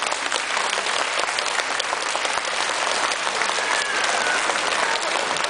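Theatre audience applauding steadily, with a brief high tone sliding slightly downward about three and a half seconds in.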